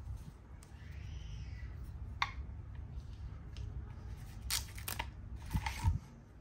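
Hard plastic knife sheaths and a fixed-blade Gerber knife being handled and set down on a padded surface: a few short, sharp plastic clicks and knocks. The clicks come once about two seconds in, then in a cluster later on, ending in a louder knock with a low thump.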